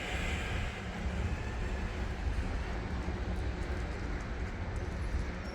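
Canadian National train moving slowly along the tracks, a steady low rumble with a faint held tone.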